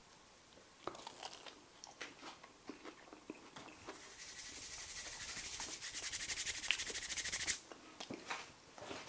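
Quiet eating and handling noises: soft scattered clicks of chewing a breadcrumb-coated fish cake, then a fast crackling rustle that grows louder over a few seconds and stops suddenly, followed by a few more clicks.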